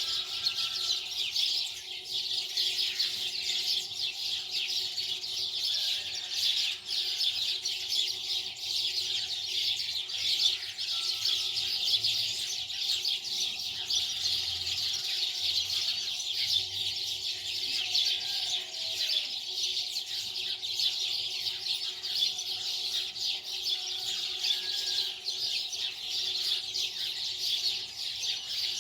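Many small birds chirping continuously, with a faint steady hum underneath.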